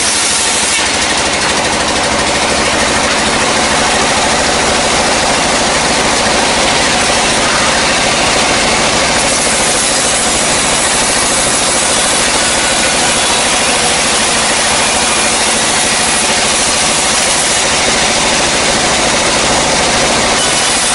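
Band sawmill running loud and steady, its vertical blade sawing lengthwise through dry timber.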